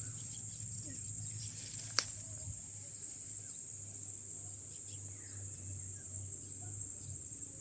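Insects, crickets or similar, chirring steadily at a high pitch. A single sharp click comes about two seconds in.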